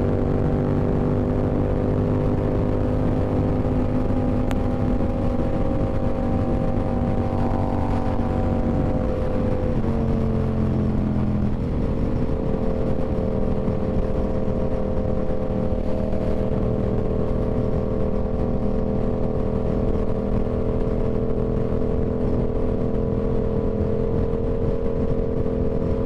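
Yamaha R7 sport motorcycle's engine running at highway speed with a rider and passenger aboard. The steady engine note eases slightly lower over the first ten seconds, drops in pitch about ten seconds in, then holds steady.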